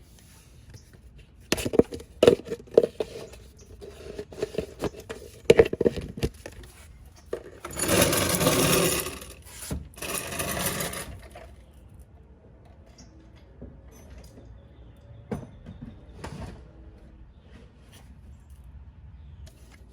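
Clattering clicks and knocks of a container being handled, then two bursts of rough hissing noise about eight and ten seconds in, the first lasting nearly two seconds.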